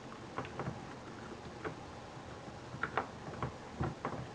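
Scattered light clicks and taps, about eight in all at uneven intervals, from small parts of a camcorder being handled and worked on during disassembly.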